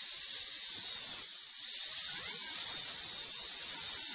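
Angle grinder working the edge of a steel frame piece: a steady, even hiss, cleaning up the cut.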